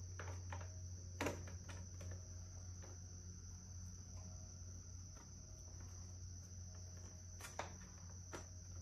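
Crickets chirring steadily, over a low steady hum. A few light clicks and knocks of plastic motorcycle tail bodywork being handled and fitted, about a second in and again near the end.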